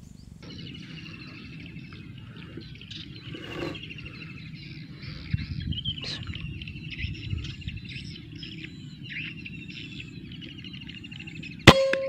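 An air rifle fires a single shot near the end: one sharp crack with a short ringing tail. Before it, steady high chirping of birds or insects over a low rumble.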